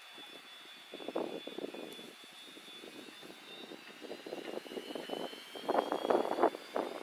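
Yakovlev Yak-42D's three rear-mounted turbofan engines running. A high whine slowly rises in pitch, and the rough exhaust rumble grows louder toward the end as the engines spool up.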